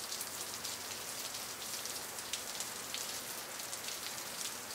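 Steady, soft rain-like hiss with a fine crackling patter and no clear pitched source.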